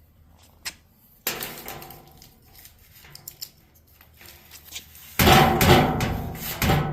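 Knocks and metallic clattering, with a single click just under a second in and a sudden, louder run of rattling from about five seconds in to the end.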